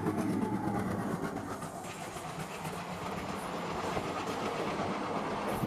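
A WDM3D diesel locomotive with a 16-cylinder ALCO engine passes close with its engine running. After about two seconds the passenger coaches follow, their wheels clattering over the rail joints.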